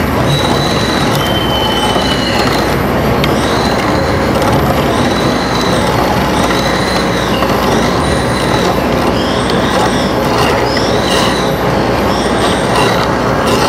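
Harsh experimental noise piece: a loud, dense wash of noise with high squealing tones that arch up and down about once a second.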